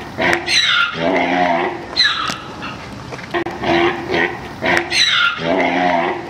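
Giraffe calls from a looped recording: high squeals falling in pitch and a lower moaning grunt, the pattern repeating about every four and a half seconds.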